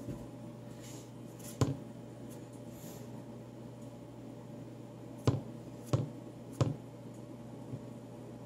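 Fingertip taps on a smartphone's touchscreen as it lies on a table: one sharp tap, then three more in quick succession about two-thirds of the way through, over a faint steady hum.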